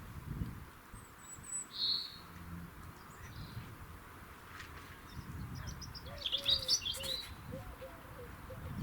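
Small garden birds chirping and twittering, with a quick run of chirps about six seconds in.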